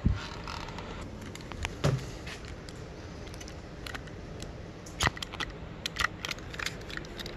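Scattered light clicks and taps of hand work on a spoked dirt bike wheel: the rim being turned to the next spoke hole, then a utility knife blade cutting into a rubber rim strip made from an old inner tube, with a sharper click about five seconds in and a run of small clicks after it.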